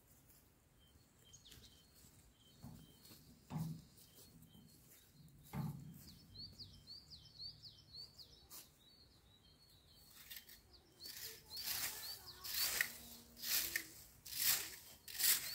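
Small birds chirping again and again, with two dull thumps in the first half. From about two-thirds of the way in, a rake scratches through dry fallen leaves in quick repeated strokes, the loudest sound.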